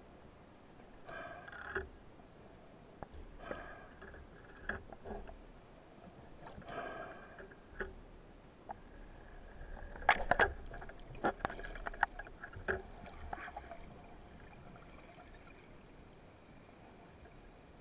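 Muffled underwater noise picked up through a camera housing as a spearfisher swims with a speargun: scattered bouts of scraping, knocking and sharp clicks from gear and body movement, busiest a little past halfway, then a faint steady hiss.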